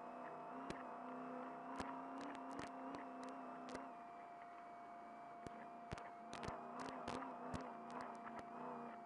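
Off-road race truck running at speed over rough desert terrain, heard from inside the cab: a steady engine drone with a constant whine, broken by many sharp knocks and clicks as the truck bounces, thickest in the second half.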